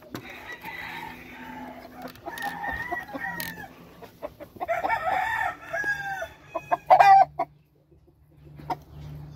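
Game roosters crowing, with chickens clucking in between; the loudest crow comes about seven seconds in.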